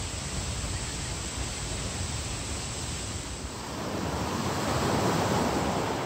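Steady rushing of a waterfall pouring into its plunge pool, growing louder about four seconds in.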